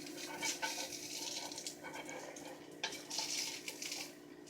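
Faint kitchen clatter: small clinks and knocks of utensils and dishes, with a short spell of hissing about three seconds in and a low steady hum underneath.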